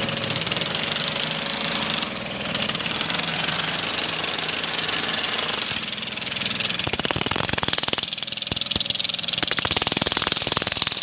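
Engine-driven machinery running with a fast, even pounding rhythm. There is a brief dip about two seconds in, and the pulses grow sparser and more separate in the second half.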